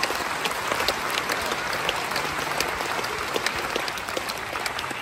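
Audience applauding: a dense, steady patter of many hands clapping that begins to die down near the end.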